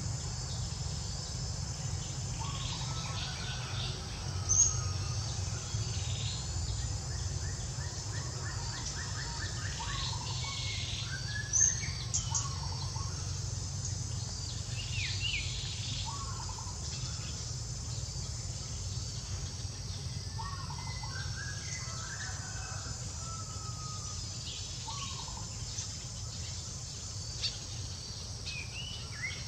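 Outdoor ambience of steadily buzzing insects with scattered short chirping calls over a low rumble. A few sharper high chirps stand out, the loudest about four seconds in and again around twelve seconds.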